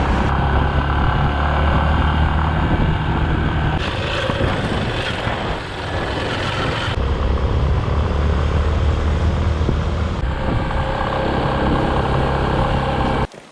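Motorcycle engine running with a steady low note. The note eases off for a few seconds in the middle and then comes back, and the sound cuts off abruptly near the end.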